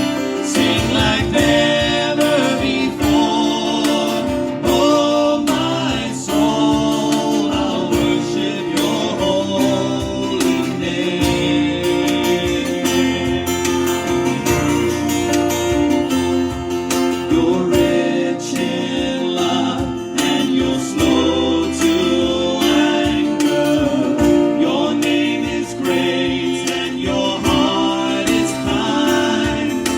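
Worship music: a song led with guitar and singing.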